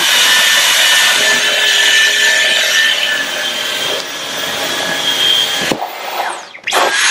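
Dyson V11 Torque cordless stick vacuum running on boost mode as its motorised brush head is pushed over a rug: a steady high whine over a rushing hiss. Near the end the sound drops out briefly, the whine falling away, then comes back.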